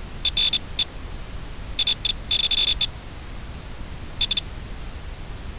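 Steady hiss from an FPV video link's audio channel, broken by three groups of short, high-pitched electronic beeps, the longest burst about two seconds in.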